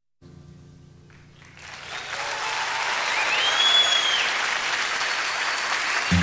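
Crowd applause on a live concert recording, swelling from faint to full over the first couple of seconds, with one whistle from the audience in the middle. The song's first instrumental notes come in right at the end.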